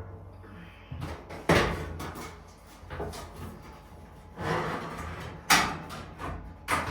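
A few separate knocks and clunks, each fading quickly, over a low steady hum.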